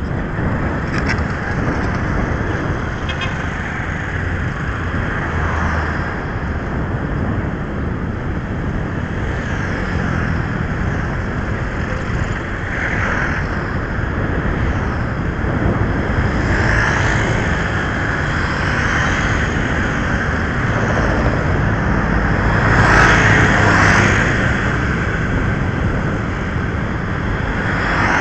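Wind rushing over the microphone of a camera moving along a street, with road noise and passing traffic. It grows louder for a couple of seconds near the end.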